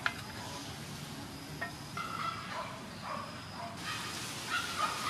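A wooden spatula knocks once against the metal wok at the start, followed by a steady hiss with a few faint short calls from about two seconds in.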